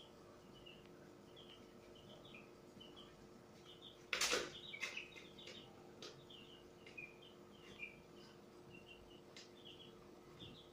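Faint steady hum of an aquarium air pump with its airstone bubbling, under a running series of short high chirps. About four seconds in there is a brief louder rustle, followed by a few light clicks.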